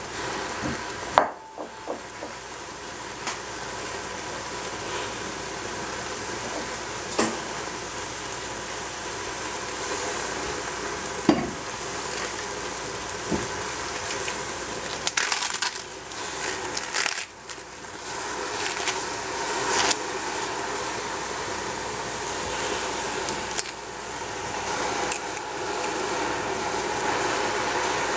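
Wet baby cabbage (xiao bai cai) steadily sizzling and hissing as it heats in a stainless steel pot, with a few sharp knocks and clinks of the pot and a glass bowl as more leaves are added.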